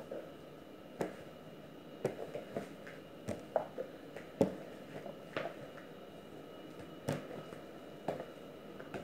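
Hands kneading pizza dough on a plastic-covered counter: soft, irregular slaps and thuds about once a second as the dough is folded over and pressed down.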